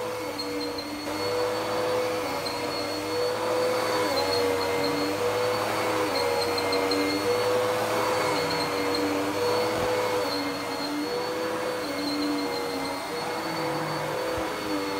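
Dirt Devil PowerMax Pet upright vacuum cleaner running while vacuuming a rug: a steady motor whine over airflow hiss, its lower tone wavering every second or two.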